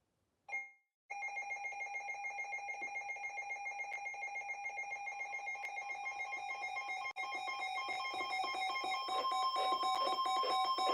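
Emergency Alert System attention tone: a steady electronic alert tone that sounds for about ten seconds and grows a little louder near the end, signalling a Winter Storm Warning alert on NOAA Weather Radio. It follows a brief electronic data burst about half a second in.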